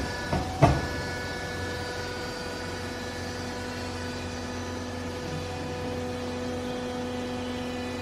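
Steady machine hum with a few even tones, broken about half a second in by two sharp metallic clicks from a hand strapping tool being worked on plastic baling strap.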